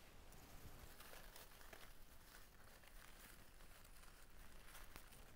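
Faint rustling and crinkling of hop vines and leaves handled by hand as material is tucked into a hanging garland, with a few soft scattered crackles.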